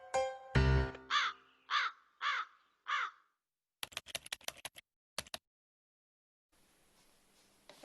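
Carrion crow giving four short caws about half a second apart, just after a closing note of music, followed by a quick run of sharp clicks.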